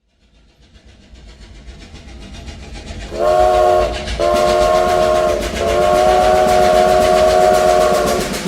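Steam train chugging in a steady rhythm, growing louder over about three seconds, then a multi-note chime whistle blowing three times: two short blasts and one long one.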